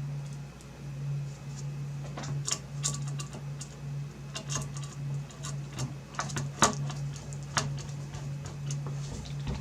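Scattered small clicks and taps of graphics-card parts being handled during reassembly, thickest from about two seconds in to near the end, over a steady low hum.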